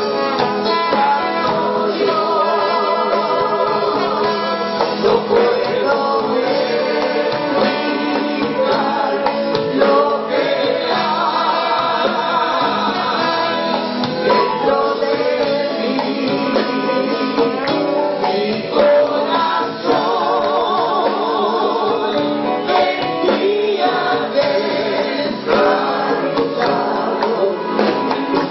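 Live gospel worship band: several singers on microphones sing together over acoustic guitar, congas, drum kit and bass.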